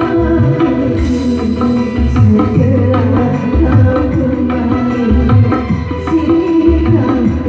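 Dangdut band playing loud, continuous music through a sound system, carried by a steady hand-drum rhythm and bass.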